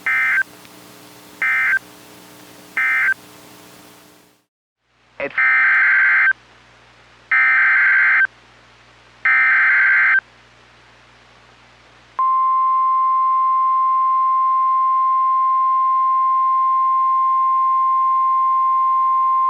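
Emergency Alert System SAME data tones on a NOAA Weather Radio broadcast. First come three short end-of-message bursts closing one warning. After a brief gap come three longer header bursts, about a second each, opening the next warning. About twelve seconds in, the steady 1050-hertz warning alarm tone starts and holds.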